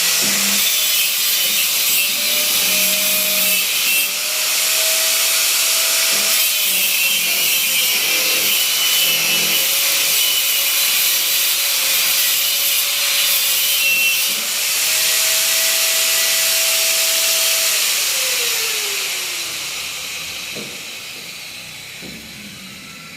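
A power tool running at high speed, a loud dense hiss over a motor tone whose pitch wavers, then winding down after about 18 seconds as the pitch falls and the sound fades.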